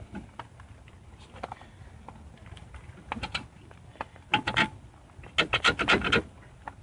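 Metal parts clicking and scraping in short clusters as a wheel hub is worked onto a Jeep Cherokee's Dana 30 axle end.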